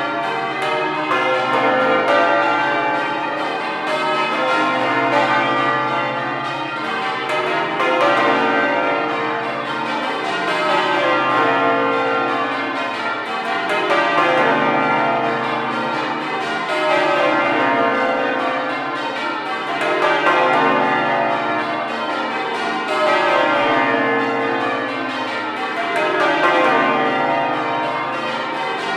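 A ring of twelve church bells in change ringing, struck one after another in rows that fall from high to low, with a new row about every three seconds.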